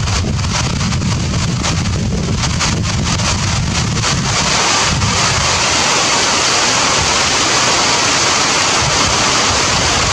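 Heavy rain pouring down as a steady, loud hiss, with wind buffeting the microphone as a low rumble. About halfway through the rumble eases and the rain hiss comes to the fore.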